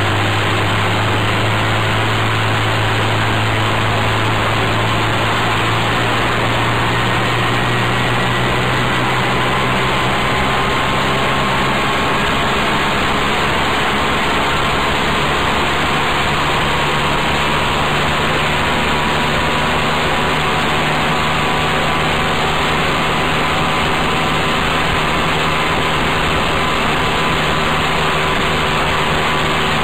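Adly GK125R buggy's small 8 hp engine running while driving, heard close up from the side of the open frame, a steady engine note that climbs slowly over the first ten seconds or so and then holds.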